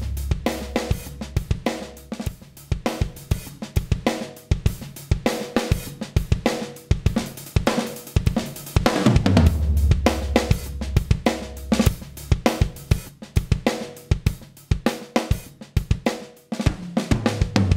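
A drum kit beat with kick, snare, hi-hat and cymbals, playing a steady groove of dense hits. A deep bass swells in about nine seconds in and again near the end.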